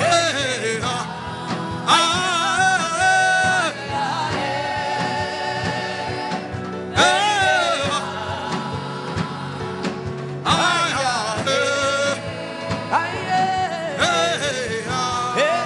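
Gospel worship music: a solo voice sings long, sliding phrases over held chords.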